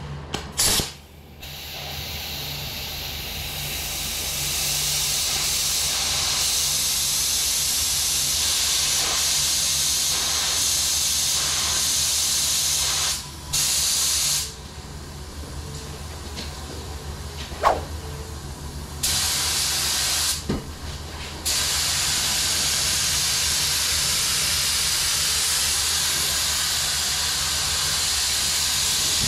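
Gravity-feed paint spray gun hissing with compressed air as paint is sprayed. The hiss stops and restarts several times in the middle as the trigger is let off between passes.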